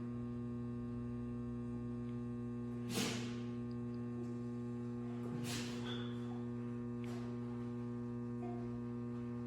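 Steady electrical mains hum, with two brief noisy bursts about three seconds and five and a half seconds in.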